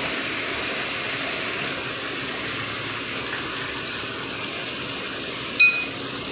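Marinated chicken pieces sizzling steadily in hot butter in a kadai. Near the end a cooking utensil strikes the pan once with a short metallic ring.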